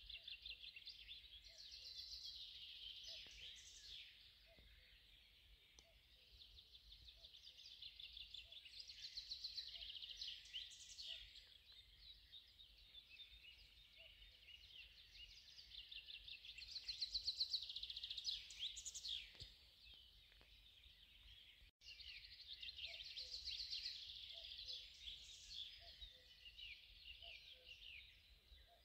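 Several songbirds singing faintly in fast trills and chattering phrases, overlapping without a break, with a soft low note repeating about once a second beneath them.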